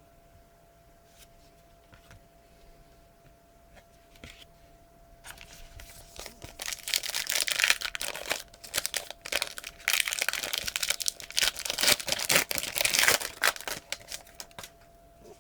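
A trading card pack's wrapper being torn open and crinkled, starting about five seconds in and going on for most of the rest, after a few faint ticks.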